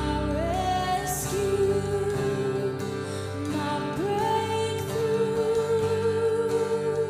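Live worship song: a woman sings long held notes that slide up into each phrase, over guitar and bass backing.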